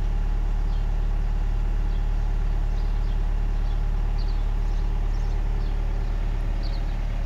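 Volkswagen Crafter's 2.0 TDI four-cylinder diesel engine idling steadily, heard from inside the cab.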